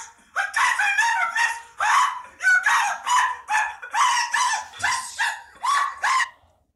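A rapid run of a dozen or so short, yelping cries, about two a second, each bending in pitch, stopping shortly before the end.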